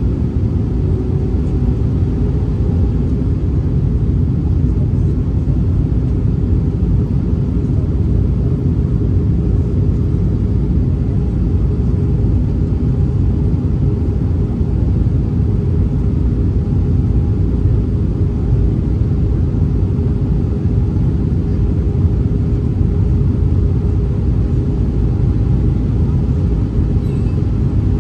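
Airbus A319-100 cabin noise in flight on approach: a steady low rumble of airflow and engine noise with a faint constant hum, unchanging throughout.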